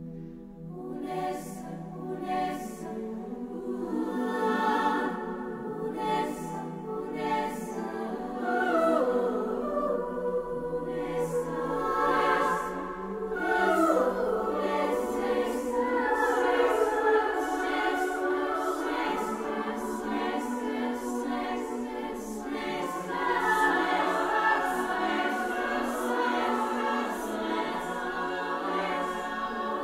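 Music of several voices singing together in layered, choir-like harmony, the voices sliding down in pitch again and again. It swells in the first few seconds, then holds.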